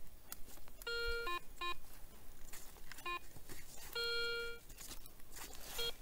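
Garrett ACE 250 metal detector sounding target signals: several beeps of a few tenths of a second each, the longest near the middle, some dropping to a brief lower tone at the end, as the coil sweeps over buried metal.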